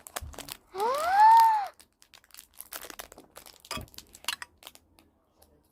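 Plastic toy packaging crinkling and clicking as it is unwrapped, in scattered small rustles and snaps. About a second in, a child gives a short wordless exclamation that rises and then falls in pitch.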